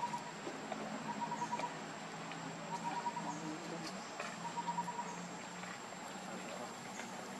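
Outdoor animal calls: short rapid pulsed trills repeating about every second and a half, over a steady thin high-pitched whine and scattered light clicks.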